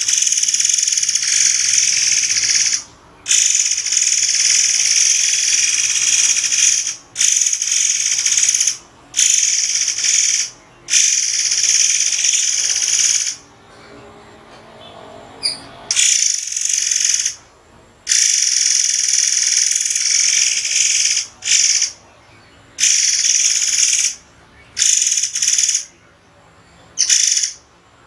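A murai air (white-crowned forktail) singing loud, shrill, high-pitched song phrases, each lasting one to a few seconds, separated by short pauses, with a longer pause about halfway through.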